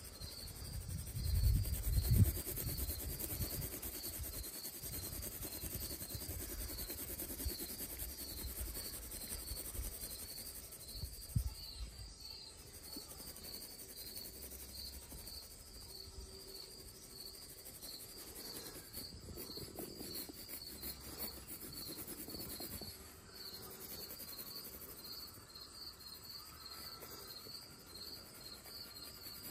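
An insect chirping steadily, a high chirp repeated at even spacing, over faint scratching of a graphite pencil hatching on paper. The loudest moment is a couple of low thumps about two seconds in.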